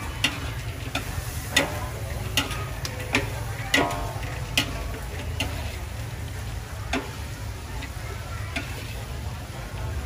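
A metal spatula scraping and knocking against a large steel wok as squid is stir-fried, with the oil sizzling. The sharp clanks come about once or twice a second and grow sparser after about five seconds, over a steady low rumble.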